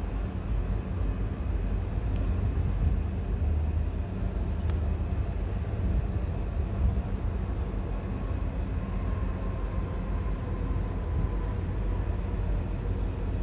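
Steady low rumble of a moving vehicle, running evenly with no sudden events.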